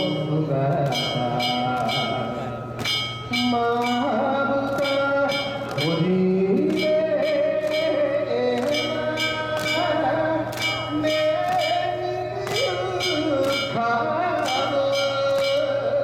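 A solo voice singing a slow song with long, wavering held notes, over musical accompaniment with a steady, repeating bell-like percussion beat.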